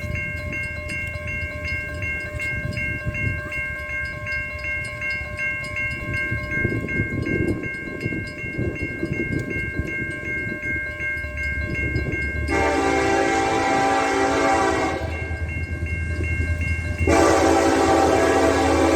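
Diesel locomotive approaching with a low rumble that grows louder, its air horn sounding one long blast about two-thirds of the way in and a second long blast starting near the end. Before the horn, a grade-crossing warning bell rings in rapid, steady pulses.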